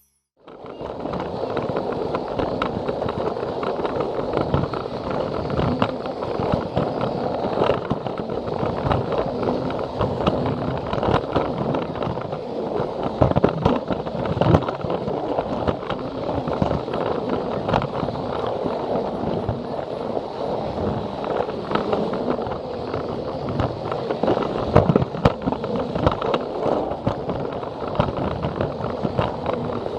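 Battery-powered Plarail toy train running along plastic track: a steady rattling whir of its small motor, gears and wheels, with frequent irregular clicks.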